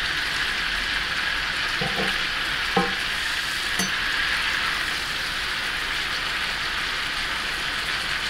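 Ribeye steak sizzling steadily in butter and olive oil in a hot pan, with three light knocks between about two and four seconds in.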